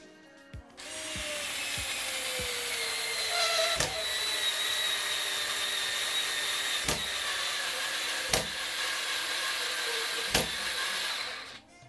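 TOPSHAK TS-ESD1 4 V cordless screwdriver's small motor starts about a second in and runs steadily with a high whine while driving a 3.5 × 60 mm screw into MDF. Its tone sinks slowly as the screw goes deeper under load. Four sharp clicks come through the run, and the motor stops just before the end.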